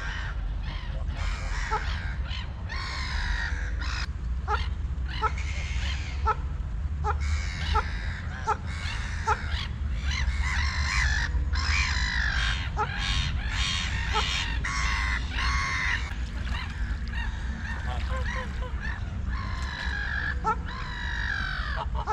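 Domestic white geese honking repeatedly, many short calls one after another, over a steady low rumble.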